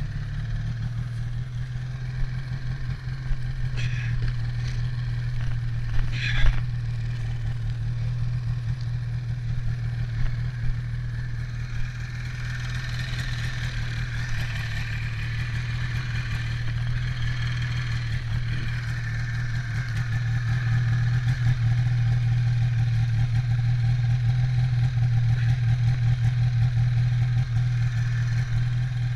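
Polaris Indy 500 snowmobile's two-stroke twin engine idling steadily while the sled stands still. A few sharp knocks come about four and six seconds in, and the idle grows a little louder past the middle.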